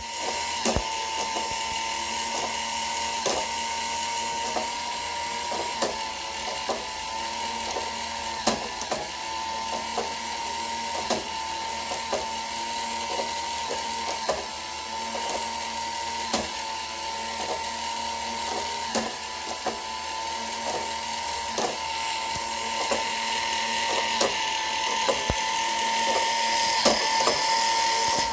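K'nex plastic machine ticking continuously: sharp clicks about two a second at uneven spacing, over a steady whine.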